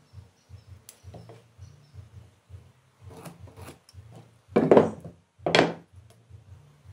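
A metal marking tool is scraped and slid across wooden boards by hand, with two loud scraping strokes about four and a half and five and a half seconds in. Between them is faint, irregular handling and rubbing on the wood.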